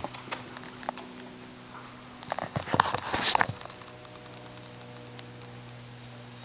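Steady electrical hum, broken by a short cluster of rustles and knocks around the middle.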